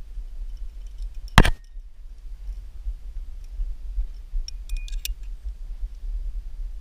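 Aluminium climbing carabiners and quickdraws clinking together as a quickdraw is pulled off the rack, with a few short metallic jingles about four and a half to five seconds in. A single sharp knock comes about a second and a half in, and a steady low rumble runs underneath.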